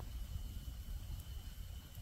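Small wood campfire burning, with a low fluttering rumble of flames and an occasional faint crackle, over a steady high-pitched insect drone.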